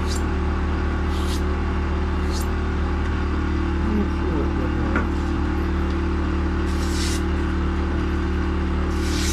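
Electric belt sharpener running with a steady motor hum. A knife blade is drawn across the abrasive belt in several short hissing passes, a few near the start and two more later on.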